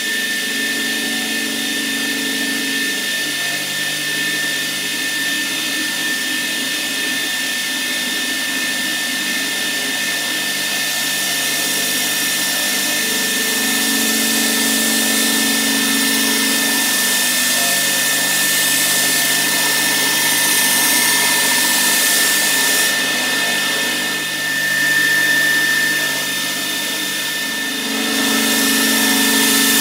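Belt grinder running with a steady motor whine while a forged steel knife blade is held flat against the belt, adding a hiss of steel being ground. The grinding hiss eases off for a few seconds near the end, then resumes.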